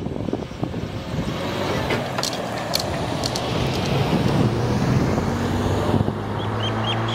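Road traffic at a level crossing as the boom gates lift: a car engine and tyres with wind on the microphone, a few sharp ticks about two to three seconds in, and a low steady engine hum that comes in past the middle.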